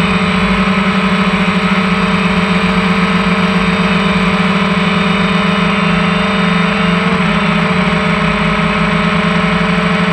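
DJI Phantom 1 quadcopter's four electric motors and propellers running steadily in flight, picked up close by its own onboard camera. There is a slight shift in pitch about seven seconds in.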